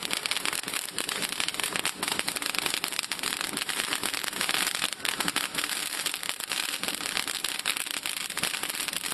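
Dense, steady crackle and hiss, a stream of tiny clicks over a bright noise: a vintage film-crackle effect.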